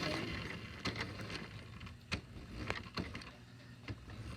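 Remote-control toy car driving: its small electric motor whirs steadily, with a few sharp knocks and clicks as it runs.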